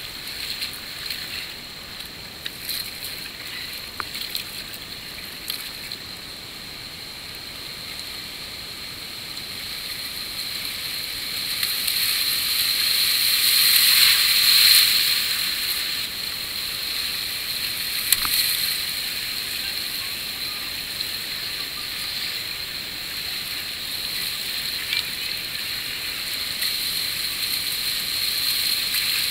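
River rapids rushing and sloshing around a whitewater kayak close to the camera, a steady hiss of moving water. The water noise swells to its loudest about halfway through as the kayak runs through rougher whitewater, with a few sharp splashes.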